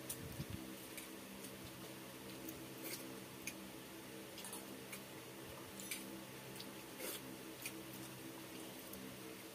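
Eating sounds of hands working pakhala, rice soaked in water, in steel bowls and fingers feeding it to the mouth: faint, irregular wet squishes, mouth smacks and clicks. Under them runs a steady low hum.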